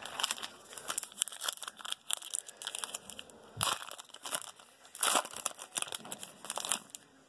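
Foil wrapper of a Panini basketball card pack crinkling and tearing as it is pulled from the box and opened, a run of crackles with two louder bursts, about three and a half and five seconds in.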